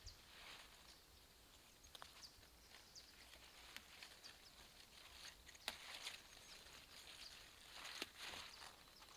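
Faint rustling of leafy vegetable plants being handled and picked by hand, with scattered light snaps and clicks. The sharpest click comes a little past halfway, and a longer rustle comes near the end.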